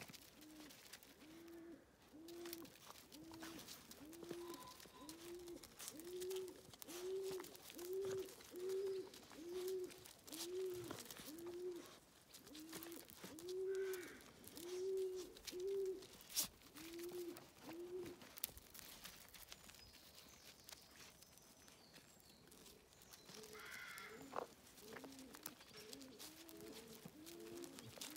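A pigeon cooing: a long, even series of soft, low coos, about three every two seconds, that stops for several seconds and starts again near the end.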